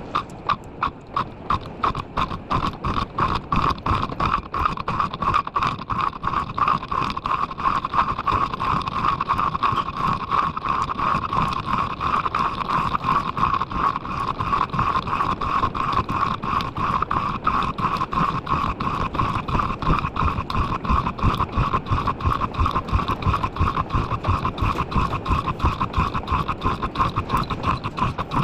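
Metal lathe machining a rock hammer part: a fast, regular knocking, about four to five strokes a second, over a steady high ringing tone.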